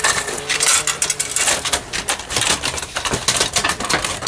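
Kick scooters clattering and rattling as they are pushed along over paving: a dense run of irregular small clicks and knocks.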